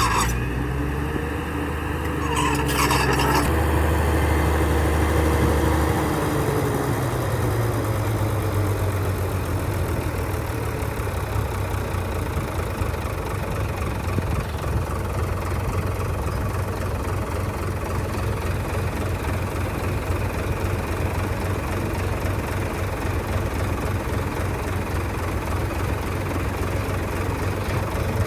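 Heavy diesel engine of earth-moving machinery running. Its pitch shifts under changing load over the first few seconds, with a brief high squeal about three seconds in, then it settles into a steady run.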